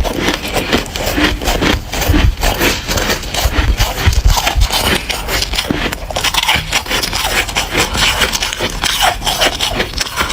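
Soft, powdery freezer frost being chewed close to the mouth, a dense run of rapid, irregular crunches and crackles.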